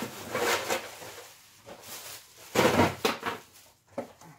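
Rustling and clattering of things being handled at a workbench, in several irregular bursts, the loudest a little past halfway, with a couple of short knocks near the end.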